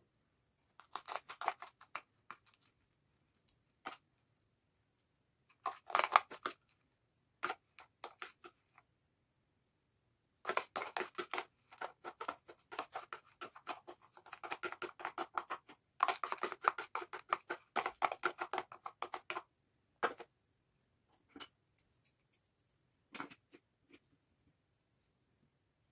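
Small metal spoon scraping chopped sausage and rice out of a plastic container onto dough, in rapid scratchy strokes. The strokes come in short bursts at first, then in a dense run of about nine seconds in the middle, then a few single clicks.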